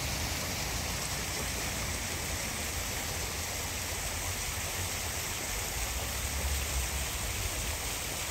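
Steady splashing and rushing of a fountain's water falling into its stone basin, with a low rumble underneath.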